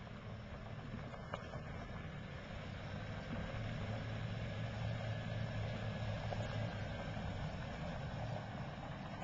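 1997 Ford Ranger 4x4 pickup's engine running steadily as the truck drives down a loose coal-waste slope toward the listener. It grows louder over the first few seconds and eases off a little near the end.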